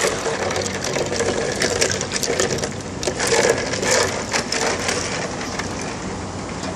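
Ice cubes clinking and water sloshing in a plastic bucket as bare hands stir and break up the ice, with many sharp clicks for the first few seconds, then quieter.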